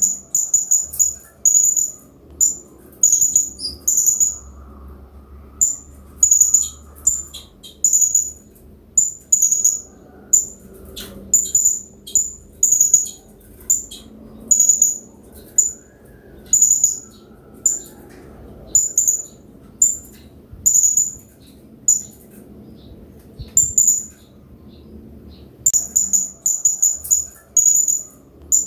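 Blue-crowned hanging parrot (serindit) giving short, very high-pitched chirps, singly or in quick runs of two to four, with brief gaps between, over a faint background of flowing water.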